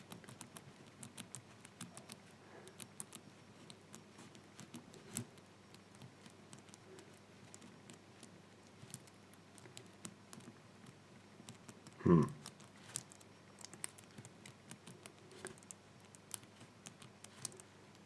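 Faint, irregular clicking of a BRINKS combination padlock's number wheels being turned detent by detent and the shackle tugged, as the wheels are felt for their gates during decoding. One short louder sound about twelve seconds in.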